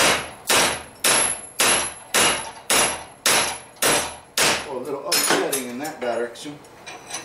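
Hand hammer striking a hot railroad spike clamped in a bench vise, about two ringing blows a second, working a right-angle bend into the steel. The blows stop about four and a half seconds in, followed by a few lighter taps and a brief mutter.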